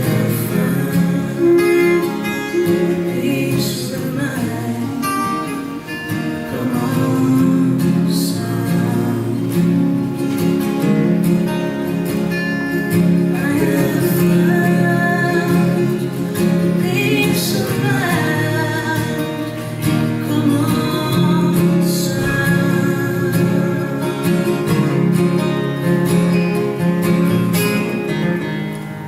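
Live music: acoustic guitar playing with singing over it, from the song's closing passage.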